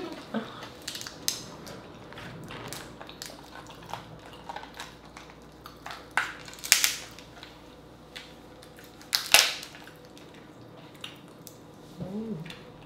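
King crab leg shells cracking and snapping as they are broken apart by hand, a scatter of small clicks with louder cracks about six and nine seconds in.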